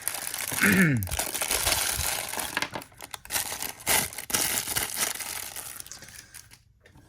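Small plastic accessory bags crinkling as they are handled and opened, the crackling dying away about six seconds in.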